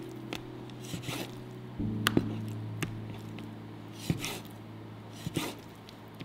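Kitchen knife cutting raw chicken thigh on a wooden cutting board: irregular sharp knocks of the blade hitting the board and softer slicing sounds through the meat, over background music with long held low notes that change about two seconds in.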